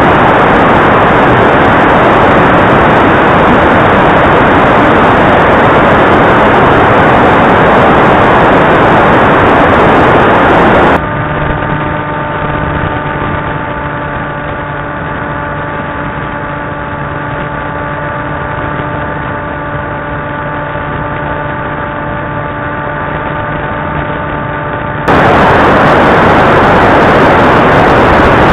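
FPV quadcopter's motors and propellers in flight, with air rushing over the mic, heard through the camera's built-in microphone on the analog video link. A loud, harsh rush for the first ten seconds or so gives way to a quieter stretch with a steady multi-toned whine, then the loud rush returns near the end.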